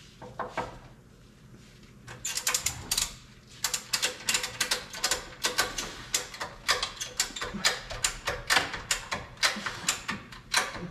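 A hand ratchet clicking in quick, uneven runs of strokes, starting about two seconds in after a couple of isolated clicks.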